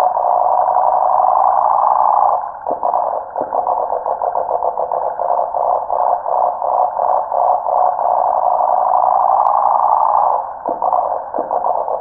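Cicada singing: a loud, continuous buzz that falters and pulses briefly about two and a half seconds in and again near ten seconds, then swells back to a steady drone.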